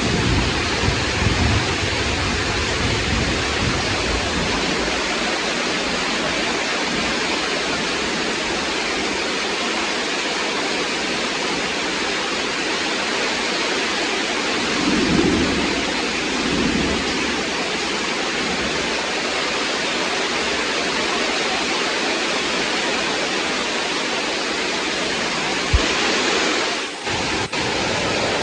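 Heavy rain falling in a steady, dense hiss. Low thunder rumbles die away over the first few seconds, and another short rumble comes about halfway through. A single sharp click is heard near the end.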